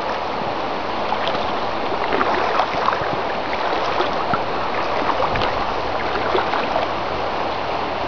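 River water rushing over stones, a steady noisy flow with many small irregular splashes and gurgles.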